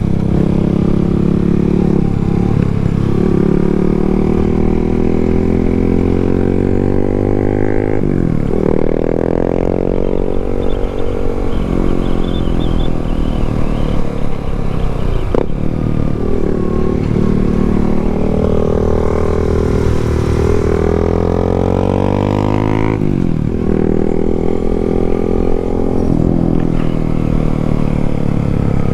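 Yamaha MT-07's parallel-twin engine running under way. The revs climb and fall several times, with sudden drops in pitch at gear changes and a slower fall as it eases off.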